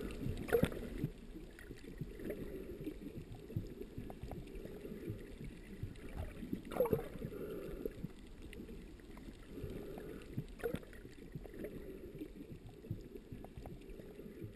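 Water lapping and sloshing, with a few sharp knocks, slowly fading toward the end.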